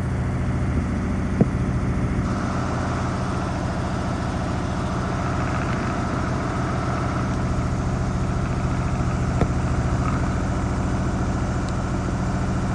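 Washing machine drum spinning in its final spin cycle, a steady machine hum with fast even pulsing. A brief sharp click comes about a second and a half in and another about nine and a half seconds in.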